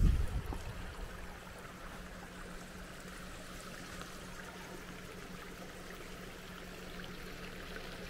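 Steady rush of a stream flowing, with a low thump on the microphone right at the start.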